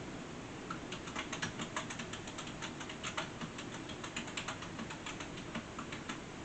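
Typing on a keyboard: a run of quick, irregular clicks that starts about a second in and stops near the end, over a steady low hiss.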